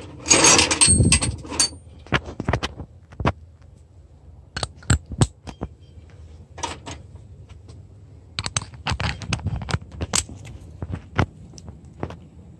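Steel sockets and extension bars clinking against each other in a metal toolbox drawer as a hand rummages for a T27 Torx socket. A louder scraping rattle comes at the start, followed by scattered sharp clinks in short clusters.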